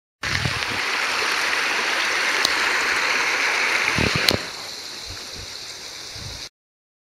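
Mountain stream rushing over rocks, a steady hiss of running water. A couple of short knocks come, the loudest about four seconds in, after which the water sounds quieter.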